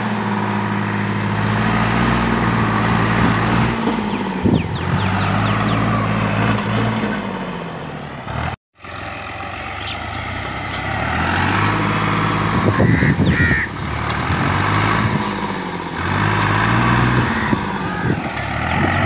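Al-Ghazi 65 HP tractor's diesel engine running hard under load while towing a heavily loaded trolley on a rope, its pitch sagging and recovering a few times. The sound cuts out for a moment about halfway through.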